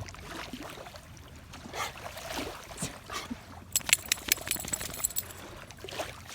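Water splashing and trickling around a swimming dog, with a quick run of sharp clicks a little past the middle.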